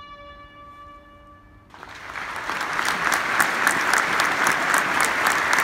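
A long, steady held note from a wind instrument ends just under two seconds in, then a stadium crowd breaks into applause that swells and stays loud.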